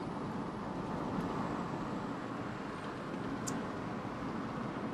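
Steady road noise inside a moving car's cabin: a constant rush of tyres and engine at an even cruising speed.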